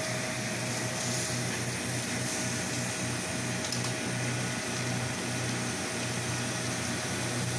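Pressure washer running steadily while a house is rinsed: a constant engine or pump hum under the hiss of the water spray.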